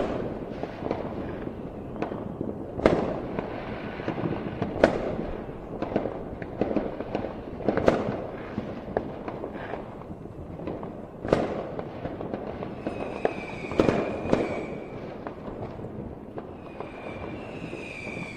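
Fireworks display: sharp bangs every second or few over continuous crackling, with high whistling tones from about two-thirds of the way in.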